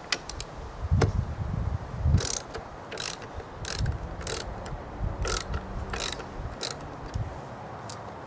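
Ratchet wrench with a 9/16-inch socket loosening a lawnmower blade bolt counterclockwise: a series of short ratcheting clicks, one burst with each back-swing of the handle, about one every two thirds of a second.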